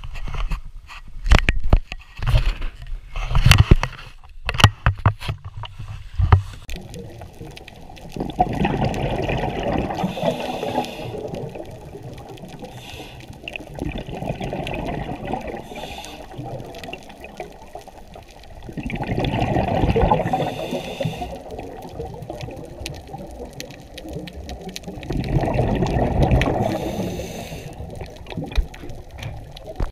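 Knocks and low buffeting on a handheld camera's microphone for the first six seconds, then muffled underwater sound: a dull water rush that swells into loud bubbling gurgles three times.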